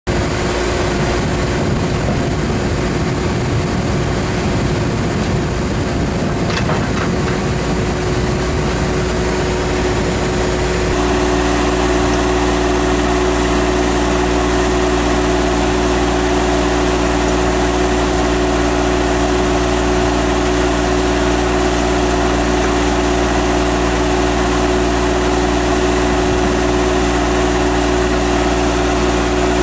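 Truxor DM 5000 amphibious tool carrier's engine running steadily at idle, with a steady hum. About eleven seconds in the sound changes abruptly, becoming a little louder and brighter.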